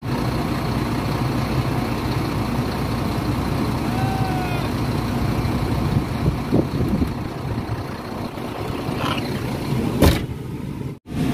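Steady diesel engine rumble of a dump truck heard from inside its cab as it drives along a dirt haul road, with a brief knock about ten seconds in.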